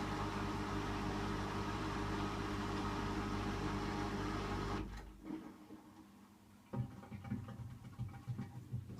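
Hotpoint washing machine on its final 600 rpm spin, the motor and drum giving a steady hum that cuts off about five seconds in. After a short lull, a sudden jolt starts a run of uneven low knocks from the machine.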